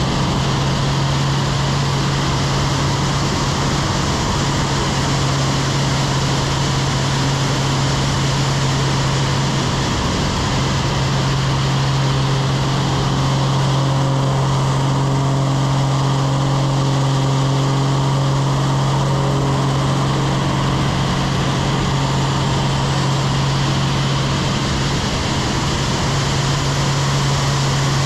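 Aerobatic biplane's piston engine and propeller droning steadily in flight, heard through heavy wind rush on a wing-mounted microphone. The engine tone wavers briefly about ten seconds in.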